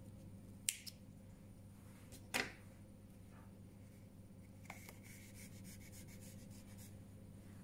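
Hands handling a small crocheted piece and its yarn: soft rubbing and rustling of yarn against fingers, with brief taps about one and two and a half seconds in. A faint steady hum runs underneath.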